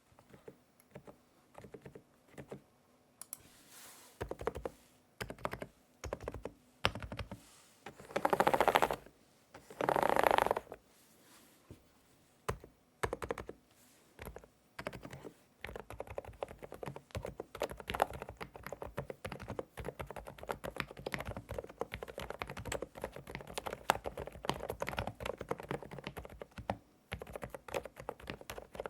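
Typing on an EPOMAKER TH108 PRO mechanical keyboard with Sea Salt Silent switches: soft, muted keystrokes. It starts with separate key presses and two loud brief flurries of rapid keystrokes, then settles into steady fast typing from about halfway on.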